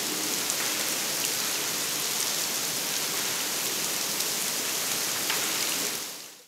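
Steady downpour of artificial indoor rain in the Rain Room installation, water falling from the ceiling and splashing on the floor, with a few separate drips standing out; it fades out near the end.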